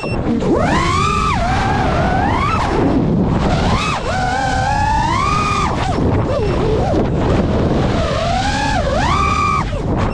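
FPV quadcopter's brushless motors whining, the pitch sweeping up and down every second or so as the throttle is punched and cut through flips and dives, over a steady low rush of air noise.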